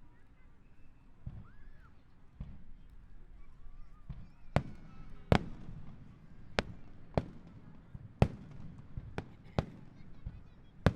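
Star Mine aerial firework shells bursting: after a few seconds of low rumble, a string of sharp bangs sets in about four seconds in, roughly one a second.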